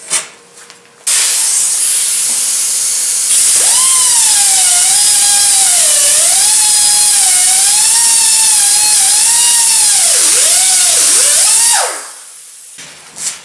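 Pneumatic cut-off tool hissing as it runs, then cutting through steel rod: a loud, wavering whine that sags in pitch as the wheel bites, dips several times near the end, and then stops.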